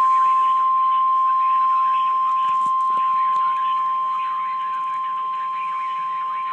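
The single steady warning tone of a NOAA Weather Radio emergency alert (about 1050 Hz) sounding for a tornado warning, held unbroken over a steady hiss.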